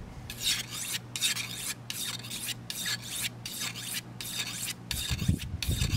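Steel fillet-knife blade stroked repeatedly along a handheld sharpening stone, a rasping stroke about twice a second: the knife is being sharpened after fish bones and scales dulled it.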